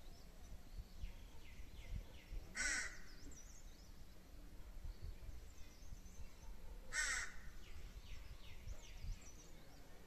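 A crow cawing twice, one harsh caw about two and a half seconds in and another about seven seconds in, over the faint chirping of small birds.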